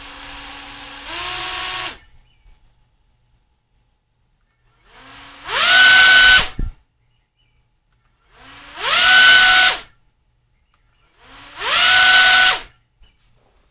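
Small brushless (BLDC) motor with a propeller, driven by a homemade ESC, whining as it runs. The pitch steps up about a second in, then the motor stops. It then gives three short, louder bursts, each spinning up with a steeply rising whine, holding steady for about a second and cutting off.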